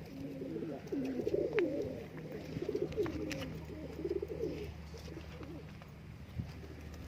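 Domestic pigeons cooing, several overlapping repeated coos that thin out near the end.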